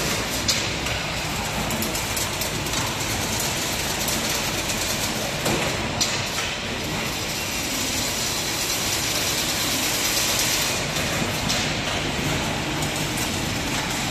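Fully automatic chain link fence machine running, weaving wire into diamond mesh: a steady, dense mechanical noise with a few sharper clicks, one about half a second in and one about six seconds in.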